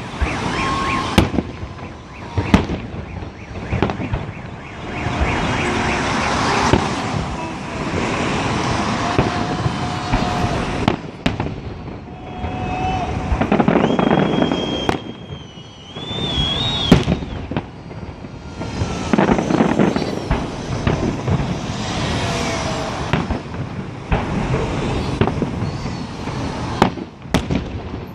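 Fireworks display going off: sharp bangs every second or two with crackling and rumbling between them.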